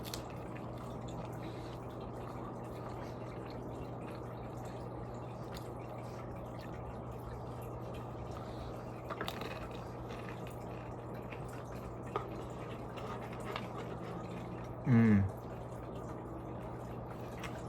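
Steady low hum with faint small clicks and taps. About fifteen seconds in, a short, loud pitched sound slides down in pitch.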